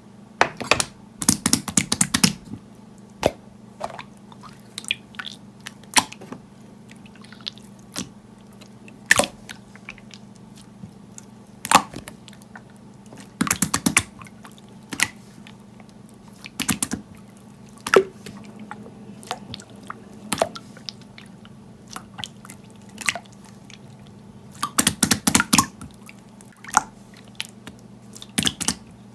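Clear slime being pressed and poked with the fingers, giving wet clicking pops, mostly single clicks about once a second with a few quick runs of rapid clicks. A steady low hum sits underneath.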